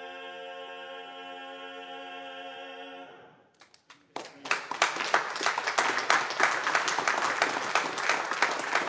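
Four men's voices singing a cappella hold a final chord, which cuts off about three seconds in. After a short pause, an audience applauds.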